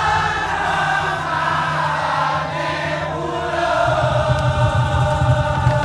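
Madurese tong-tong ensemble playing, with many voices chanting or singing together over the music. The low drum beats get louder about four seconds in.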